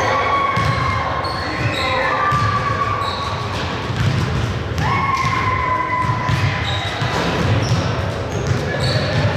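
Basketball game sounds in a gym hall: a basketball bouncing on the court, sneakers squeaking, and players' voices, with the echo of a large room.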